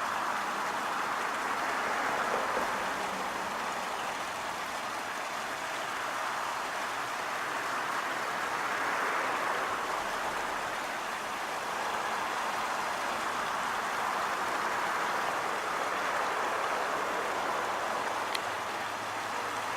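Steady rush of stream water spilling over a small waterfall, swelling and easing slightly every few seconds.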